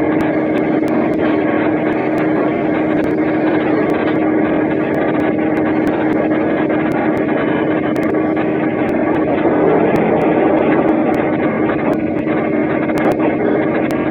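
A train running with a steady, unchanging drone and a constant hum. The recording is muffled and cut off in the treble because it was made on a feature phone.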